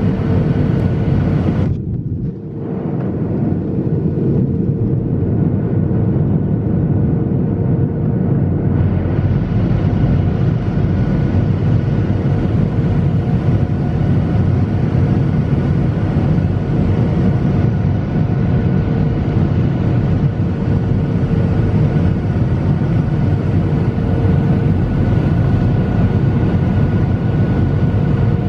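Steady cabin roar of a Boeing 737 airliner in flight, engine and airflow noise with a steady hum through it. The hiss grows brighter about nine seconds in.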